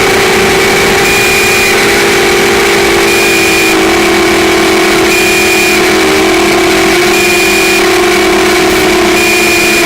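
Brushless motors and propellers of a QAV200 FPV racing quadcopter whining steadily over a loud hiss, the pitch drifting slowly lower. A short high beep repeats about every two seconds.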